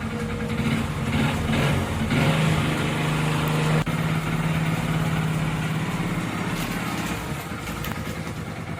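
Hero Glamour motorcycle's single-cylinder four-stroke engine idling steadily, just started after an oil change so the fresh oil circulates. It is a little louder in the middle and eases off toward the end.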